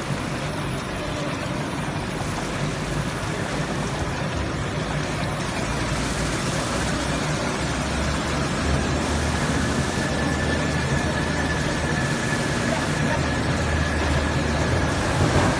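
SBS bitumen waterproof membrane production line running: steady mechanical noise with a low hum underneath. A faint high whine comes in for several seconds in the second half.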